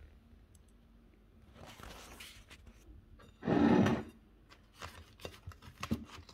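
A brief rubbing scrape about three and a half seconds in, the loudest sound, followed by small crackles and rustles as a soft chapati is torn apart by hand.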